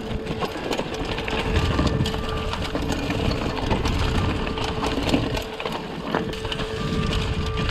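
Yeti SB95 mountain bike rolling over dry leaves and rocks on singletrack: tires crunching through the leaf litter and the bike rattling over rocks, with many short knocks. A steady whir runs underneath, dropping out briefly and coming back a few times.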